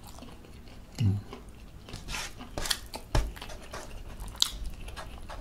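Close-up mouth sounds of chewing buttermilk chicken and rice, with scattered wet clicks and smacks and a short hum about a second in.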